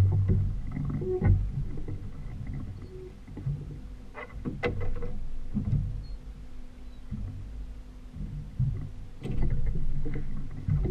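Outboard motor running while the boat moves through the water, a steady low rumble mixed with water and wind noise. It is broken by a few sharp knocks from the boat, the clearest about four seconds in and again near the end.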